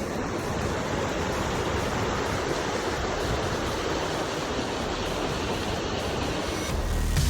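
Waterfall rushing: a steady, even noise of falling water. Electronic music comes in near the end.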